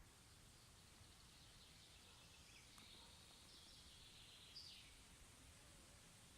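Quiet outdoor ambience with faint distant birdsong over a low background rumble, and one brief, slightly louder falling call about four and a half seconds in.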